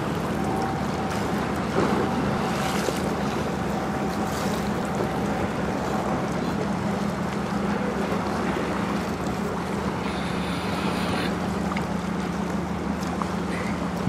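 Large lake freighter passing close by: its engines make a steady low hum, over the rush of water along the hull and wind on the microphone. A faint thin whine sits above the hum for the first six seconds or so.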